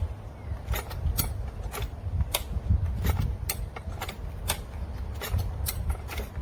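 High-lift farm jack being pumped under load, its ratcheting mechanism giving sharp clicks about two to three times a second over a low rumble as it pulls a chained fence post out of the ground.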